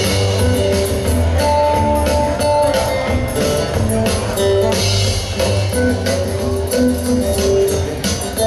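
Live band playing an instrumental passage with no singing: acoustic guitar picking the melody over a drum kit with cymbals.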